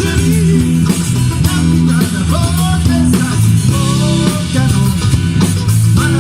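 A band playing a rock song, with guitar, bass and drums and a bending melody line on top.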